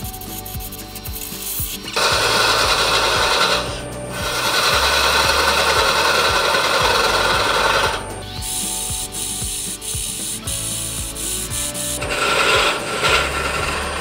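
A turning chisel cuts into a wooden blank spinning on a wood lathe, making a loud scraping hiss. The cut comes in several passes: about two seconds in, again from about four to eight seconds, and once more near the end. The lathe's quieter steady hum runs between the passes.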